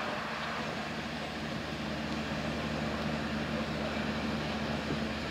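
Steady low hum of a moored ship's diesel engines running just before it casts off, with a faint even haze of harbour noise over it.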